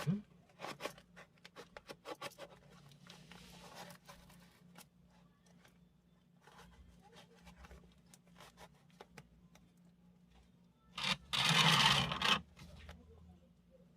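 A cardboard parcel being cut and torn open: small scrapes and clicks of handling, then about eleven seconds in a loud ripping sound lasting over a second as the packing is torn.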